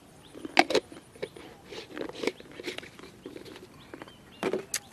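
Close-up chewing and biting of crunchy jellyfish salad: irregular crisp crunches, loudest about half a second in and again near the end.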